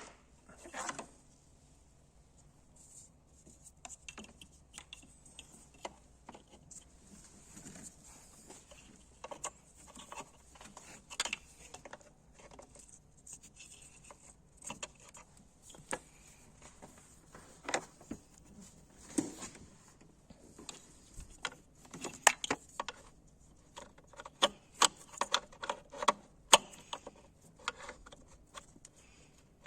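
Scattered light clicks and taps of hands handling small tools or parts, coming more often and louder in the second half.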